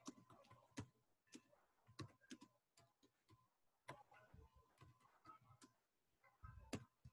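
Near silence with faint, irregularly spaced clicks.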